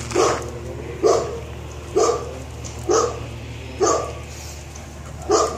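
Belgian Malinois bitch barking: six single barks, about one a second, with a longer gap before the last.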